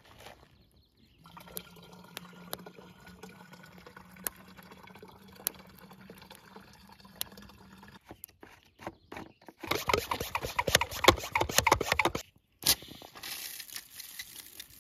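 Hot water poured from a kettle into a plastic one-gallon pump sprayer, a steady pour lasting several seconds. About ten seconds in, the sprayer's hand pump is worked to pressurize it: a couple of seconds of loud, rapid clatter, followed by a short hiss.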